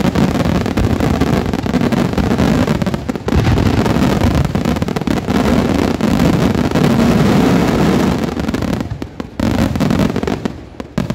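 Dense barrage of firework shells bursting, the rapid reports running together into a continuous heavy rumble, then thinning out into separate bangs with gaps over the last couple of seconds.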